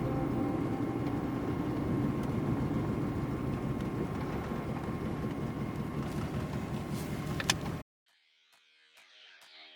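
Steady road and engine rumble of a vehicle being driven, with a sharp click just before it cuts off suddenly about eight seconds in; guitar music then fades in.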